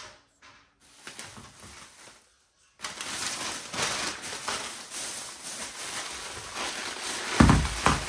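Rustling and handling noise, with clatter and a louder low thump near the end. It starts abruptly about three seconds in.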